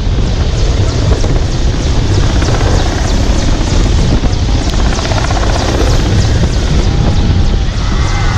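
Mi-17 twin-turboshaft military helicopter hovering low overhead: loud, steady rotor and engine noise with a heavy low rumble.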